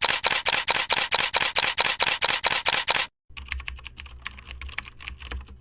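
Rapid, evenly spaced clicking like typing, about six clicks a second, that stops abruptly about three seconds in. Fainter, irregular clicks follow over a low steady hum.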